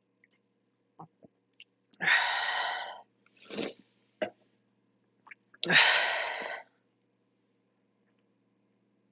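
A person belching loudly twice, each burp about a second long and about three and a half seconds apart, after chugging cans of drink, with a quick breath between them.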